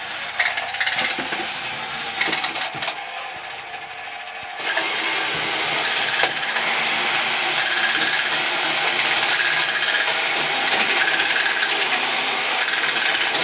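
Several battery-powered 1970s Tomy Karate Robot toys running together: their small motors and plastic gear trains whirring and ratcheting continuously as the robots move. The rattle gets louder about four and a half seconds in.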